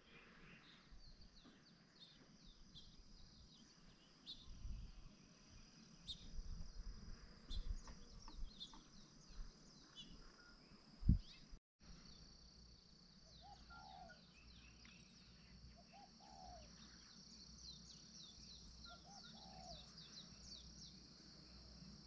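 Faint outdoor ambience of small birds chirping, with a steady high insect drone in the second half. Wind rumbles on the microphone in the first half, with one thump about eleven seconds in, and a lower call repeats three times later on.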